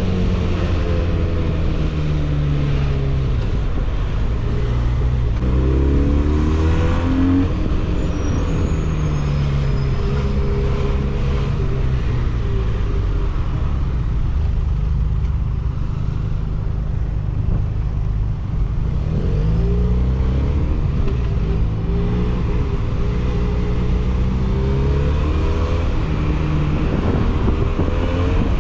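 Benelli 302S motorcycle's 300cc parallel-twin engine running through its exhaust, its pitch climbing in revving sweeps twice and falling back between them as the bike accelerates and eases off.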